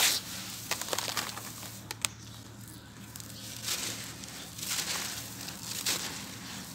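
Dry sand-cement crushed and crumbled by hand: a sharp crack at the start, a few gritty clicks, then from about halfway repeated bursts of gritty crumbling as a dry cement block breaks up and powder and grit pour down.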